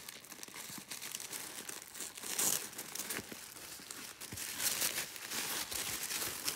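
Tissue paper rustling and crinkling as sheets are unfolded and lifted out of a box, with louder crinkles about two and a half seconds in and again near five seconds.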